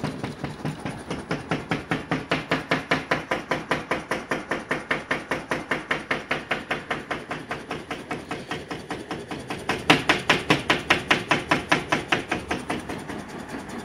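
The chipboard baffle panel of a rotary subwoofer and the wall around it rattling, a sharp knock about five times a second as the woofer is driven with a 5 Hz sine wave. The knocking grows louder for a few seconds about ten seconds in.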